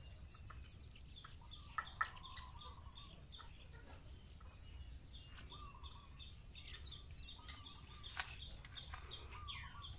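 Birds chirping repeatedly in the tree canopy, faint, with a few single sharp taps scattered through, two close together about two seconds in.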